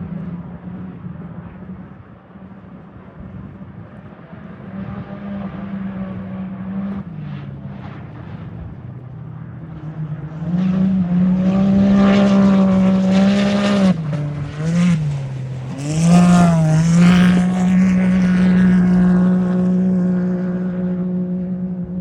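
Off-road race vehicle's engine held at a steady high pitch, growing much louder about halfway through as it comes close. Its pitch dips briefly twice, as if the throttle were lifted, then holds steady again as it fades.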